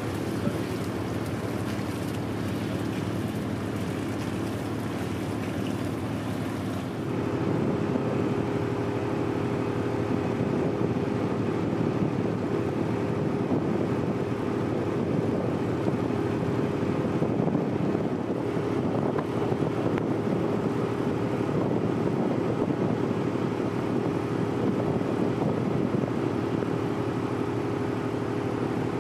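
Tugboat's diesel engine running with a steady hum, getting louder about seven seconds in.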